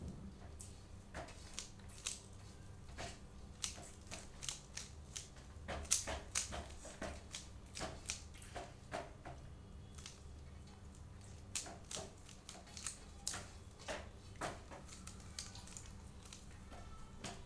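Plastic layers of a stickerless 3x3 puzzle cube clicking and clacking as they are turned by hand, in quick irregular runs of several turns a second with short pauses between.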